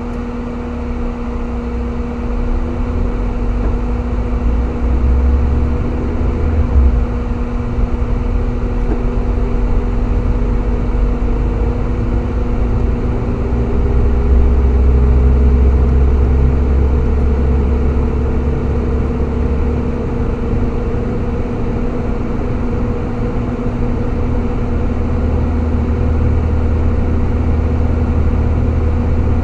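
A car driving, heard from inside the cabin: engine and road noise with a steady hum throughout. The low rumble swells around the middle, and a faint tone rises slowly as the car picks up speed.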